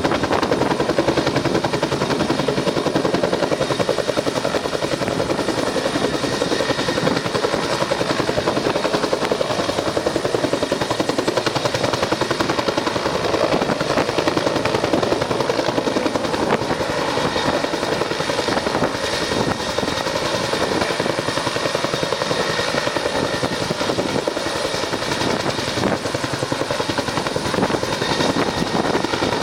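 Helicopter hovering for a winch rescue, its rotor and turbine running loud and steady with a fast, even blade chop.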